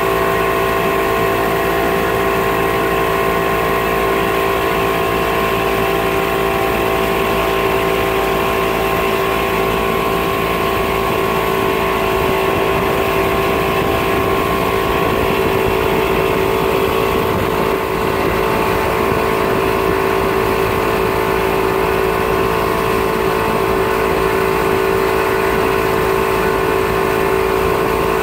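Mercury outboard motor running at a steady towing speed, its pitch holding constant throughout.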